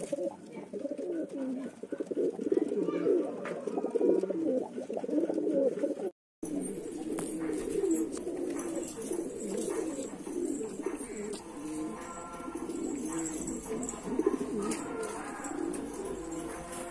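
Domestic pigeons (Andhra high-flyers) cooing continuously, many low warbling coos overlapping. The sound drops out briefly about six seconds in, then the cooing carries on.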